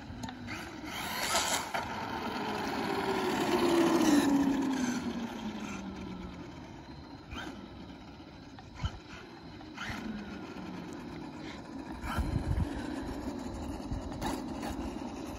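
Traxxas Maxx RC monster truck on a 4S LiPo with a brushless motor, running hard: the motor whine swells, then falls steadily in pitch as the truck passes and slows. It builds again near the end, with a few sharp clicks along the way.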